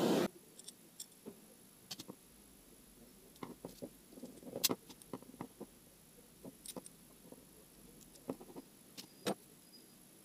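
A gas torch's flame hiss cuts off abruptly right at the start. Then come scattered light clicks and taps of small brass ball-valve parts and copper tubing being handled.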